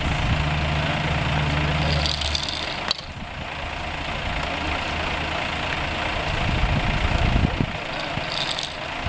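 Portable fire pump engine running: a steady low engine hum for the first two and a half seconds, then a sharp click about three seconds in, after which it turns rougher and noisier.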